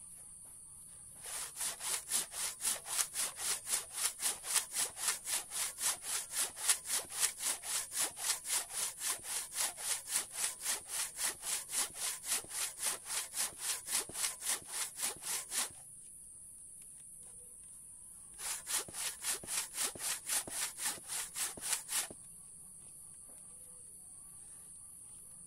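Handsaw with a wooden handle cutting through very hard mangosteen wood in steady push-pull strokes, about three a second. The sawing runs for about fifteen seconds, stops, then resumes for a shorter run of about three and a half seconds. A steady high-pitched drone runs underneath.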